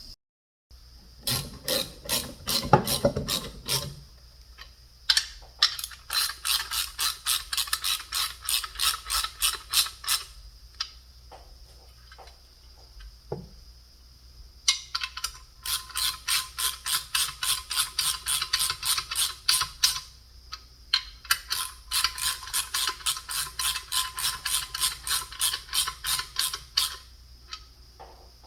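Hand ratchet wrench clicking in long runs of about four clicks a second as bolts are run down, with some knocking of parts being handled at the start.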